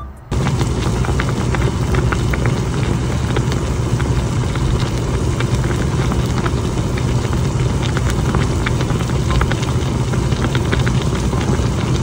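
Doenjang soup boiling hard in an earthenware pot on a gas stove: a steady rush of noise with many small pops from bursting bubbles.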